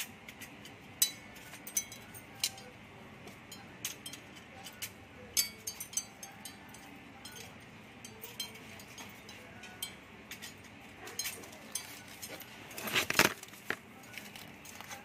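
Glass rods and glass panels of an HL-7737 chandelier clinking and tapping against each other and the metal frame as the panels are fitted, in scattered sharp ticks with a denser, louder clatter about thirteen seconds in.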